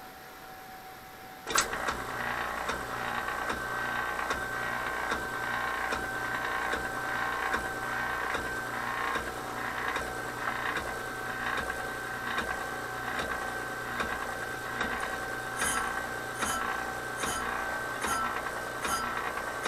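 Atlas brake rotor lathe switched on about a second and a half in, then running steadily with an even pulsing churn from its motor and drive. In the last few seconds a sharp clink repeats a little faster than once a second as the cutting bit starts touching the spinning cast-iron brake rotor.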